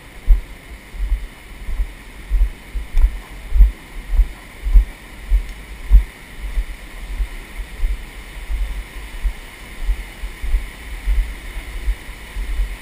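Low, dull thumps of handling noise on the camera's microphone, coming roughly in step with walking at about one and a half a second. Under them runs a steady hiss of flowing water from an underground stream.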